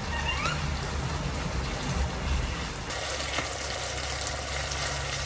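Minced meat and tomato sauce sizzling in a frying pan as it is stirred: a steady, even hiss. A short rising squeak sounds about half a second in.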